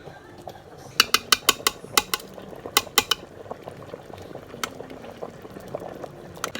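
Metal utensil clinking against a pot or bowl while stirring: a quick run of about eight clinks, a few more a second later, then single clinks.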